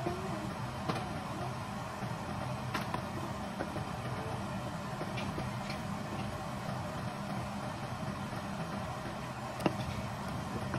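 Wooden spoon stirring thick béchamel sauce in a saucepan, with a few light knocks of the spoon against the pan, the last and loudest near the end. Under it runs a steady low hum.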